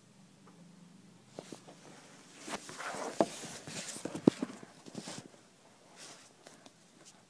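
Handling noise from a phone being moved about and set down on a desk: rustling and rubbing against the microphone with several sharp knocks in the middle, the loudest a little past four seconds in.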